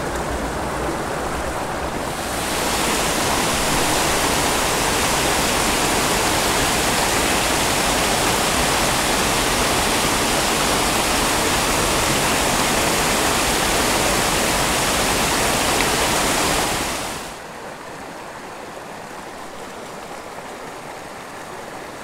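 Flowing water of a small mountain creek, a steady rush that grows louder about two seconds in where it tumbles over a small log-jam cascade, then drops off suddenly near the end to the quieter flow of a calm run.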